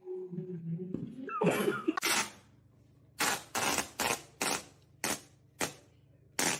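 A brief pitched vocal sound, then a run of short, sharp coughs, about two a second.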